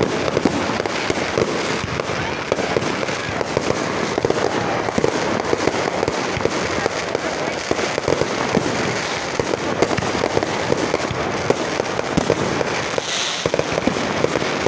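Many fireworks and firecrackers going off at once: a dense, continuous crackle of rapid pops with no break.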